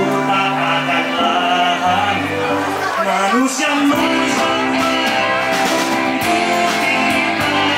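Live pop-rock band playing a song through a PA, with a man singing lead over electric guitars, bass guitar, keyboard and drums.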